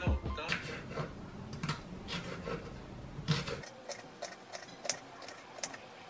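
Kitchen knife dicing bell pepper on a wooden cutting board: a string of sharp, irregular taps of the blade hitting the board, about two a second.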